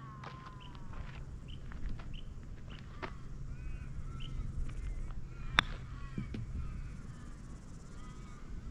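Birds calling in short repeated chirps, and a little past halfway a single sharp click of a golf iron striking the ball in a soft putt.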